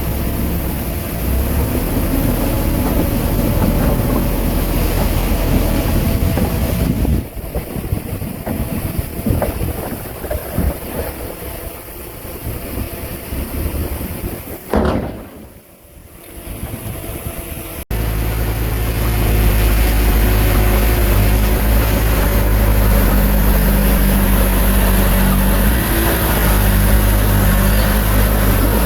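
Diesel engine of heavy earthmoving machinery running. It grows quieter and more uneven from about seven seconds in and dips near sixteen seconds, then cuts suddenly at about eighteen seconds to a loud, steady engine hum.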